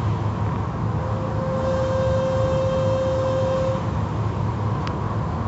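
Automatic car wash heard from inside the car: water spray and hanging cloth wash strips sweeping over the windshield and hood, over a steady low rumble of the wash machinery. A steady whine comes in about a second in and stops near four seconds, and there is one sharp click near the end.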